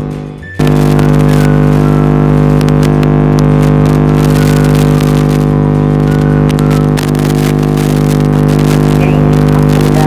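Loud, steady buzzing drone with crackling static over it: a garbled audio glitch in a phone screen recording. It drops out briefly about half a second in, then resumes.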